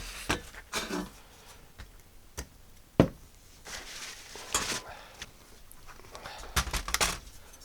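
A thin sheet-metal RF shield being handled and rubbed down: scattered light clicks and clinks of metal, with a few short scraping hisses.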